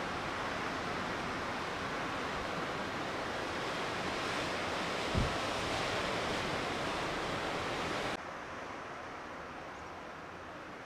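Steady rushing hiss of wind, with a brief low thump about five seconds in; the noise drops suddenly a little past eight seconds.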